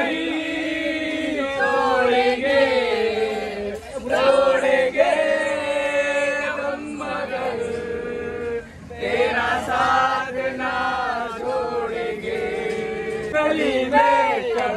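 A group of men and women singing a song together in chorus, without instruments, as in a game of antakshari.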